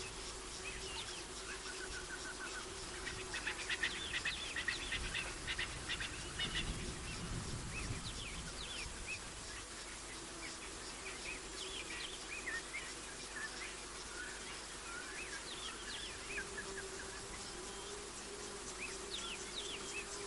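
Outdoor evening chorus of birds and insects: many short chirps and quick whistled glides, with a rapid ticking trill about three to five seconds in, over a faint steady low drone.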